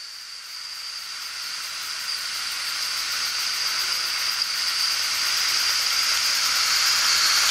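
Homemade oscillating double-acting model steam engine running fast, its exhaust steam hissing steadily with a faint high whistle, growing louder throughout.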